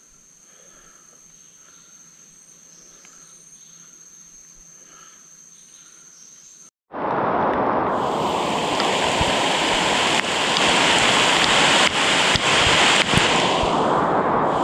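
Quiet forest background with faint, steady high-pitched insect tones. About seven seconds in it cuts to heavy rain pouring down: a loud, dense hiss with scattered sharp drop ticks.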